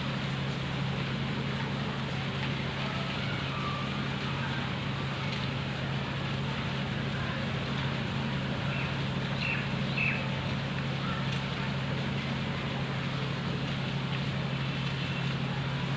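Steady outdoor background noise under a constant low hum, with a few short bird chirps about nine to ten seconds in.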